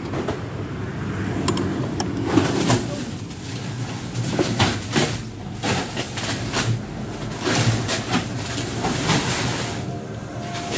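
Large plastic sacks of ice being handled: irregular knocks and plastic rustling as the sacks are dragged and dropped. Underneath is a steady low hum of a vehicle engine running.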